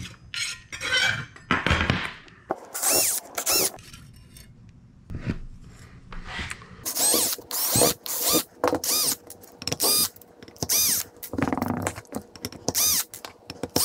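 Cordless drill/driver spinning in a dozen or so short bursts, each rising and falling in pitch, as it backs screws out of a small turbojet engine's casing.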